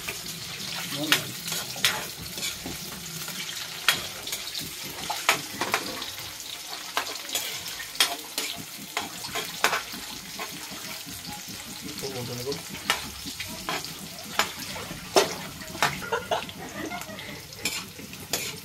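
Chicken adobo sizzling as it fries in a pan. A utensil is stirred through it, giving frequent sharp knocks and scrapes against the pan.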